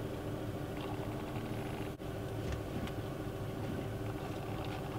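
A motorhome's engine idling steadily, heard from inside the cab, with a few faint light clicks over the hum.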